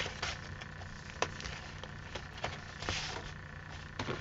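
Paper and card of a handmade journal being handled: soft rustling with a few light taps and clicks as pages and inserts are moved, over a low steady hum.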